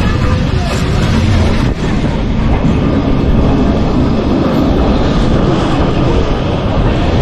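A Lisbon electric tram running along its rails: a steady, loud rumble of wheels and running gear.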